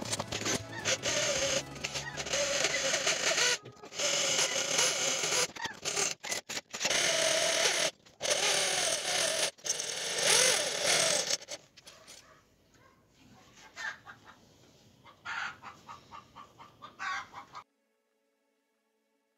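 Electric drill boring through a tempered steel blade, the bit squealing with a wavering pitch in stop-start runs. After about twelve seconds it drops to quieter short bursts, then cuts off shortly before the end.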